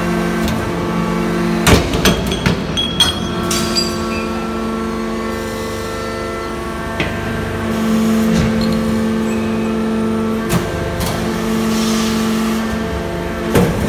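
Hydraulic scrap-metal shear running under test: the steady hum and whine of its hydraulic power unit, broken by a rapid cluster of metallic clanks and bangs about two seconds in as the blade strokes, and by single bangs later, the last near the end.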